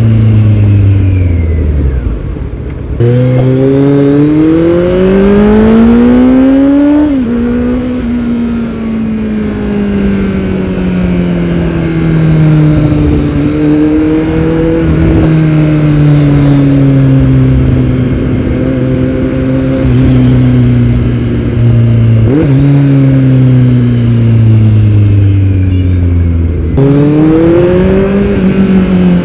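Kawasaki Z900's inline-four engine through a Yoshimura R77 full-system exhaust, under way on the road. The revs climb steeply about three seconds in, drop sharply at a gear change about seven seconds in, then hold and ease down slowly for a long stretch before climbing again near the end.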